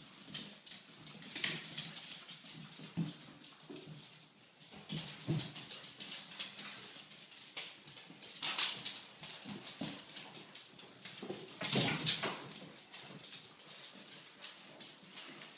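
Dogs, a Yorkshire terrier and a white bully, playing on a hard laminate floor: claws clicking and scrabbling, with the dogs' own short vocal sounds and a few louder breathy bursts, the loudest about twelve seconds in.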